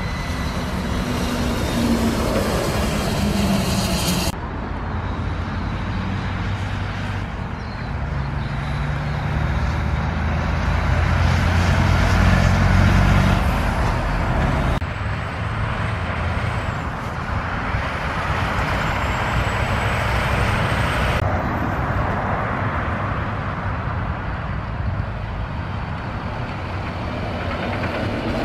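Heavy diesel trucks driving past one after another, engine drone and tyre noise, with sudden changes in the sound where one truck gives way to the next. A deep, steady engine drone dominates from about 8 to 14 seconds in.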